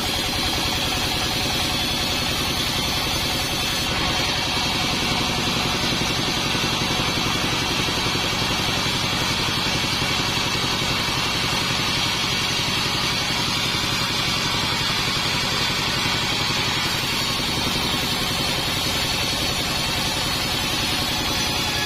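Modified 48-inch bandsaw sawmill running steadily: an even, continuous machine noise with a low pulsing hum and a strong high-pitched hiss over it, without a break.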